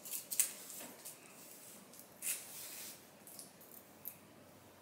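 Faint rustling of long wig hair being fluffed and arranged by hand, in a few short soft swishes, the loudest just after the start and about two seconds in.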